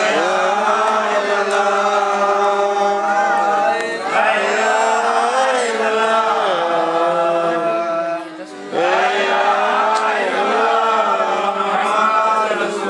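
Men chanting a devotional Islamic dhikr, unaccompanied, in long drawn-out melodic phrases: three sustained, sliding phrases of about four seconds each.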